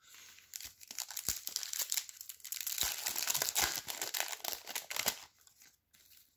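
Foil wrapper of a Topps Chrome trading-card pack crinkling and tearing as it is opened, a dense crackle with sharp clicks that stops after about five seconds.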